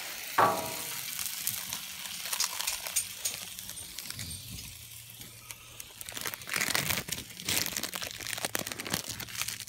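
Plastic wrapping crinkling and rustling in bursts, with light clicks, as burger fixings and wrapped cheese slices are handled. It is heavier toward the end, and there is a brief sharp sound about half a second in.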